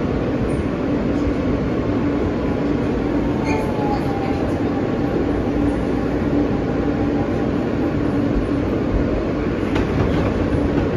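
Interior ride noise of an R160B Siemens subway car on the move: a steady, loud rumble of wheels on rail with a constant hum, and a faint falling whine about four seconds in.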